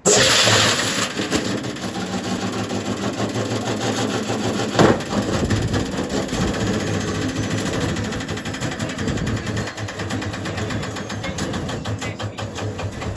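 Candy washing machine spinning with a brick and loose parts in the drum, a fast, continuous banging and rattling that starts abruptly, with one louder bang about five seconds in.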